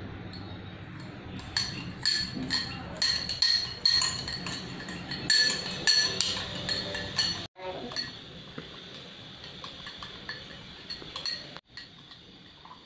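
A teaspoon clinking against the inside of a ceramic mug as sugar, coffee powder and a spoonful of water are beaten into a paste. The strikes come fast and ring for several seconds, then thin out to occasional light taps.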